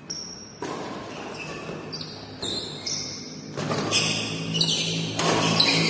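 Badminton rally in a large hall: rackets striking the shuttlecock about once a second, each hit sharp and echoing, mixed with players' shoes scuffing on the floor.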